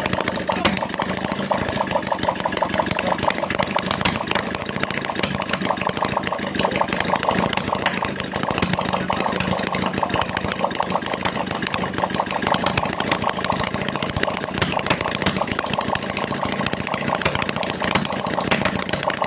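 Engine idling steadily, an even run of firing pulses with no revving.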